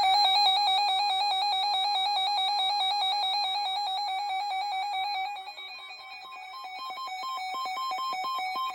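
A weather radio receiver's alert alarm going off, set off by an incoming alert: a loud, rapidly warbling electronic tone. It drops to a quieter level about five and a half seconds in.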